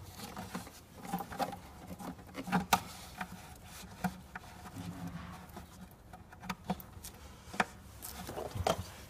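Scattered light plastic clicks, taps and rubbing as wiring clips are pushed onto the edge of a plastic air filter housing, with a few sharper snaps among them.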